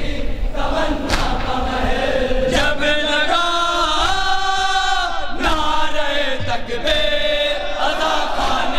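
Noha chanted by a group of male mourners led by a reciter, singing in unison with long held notes. Sharp chest-beating slaps (matam) mark the rhythm.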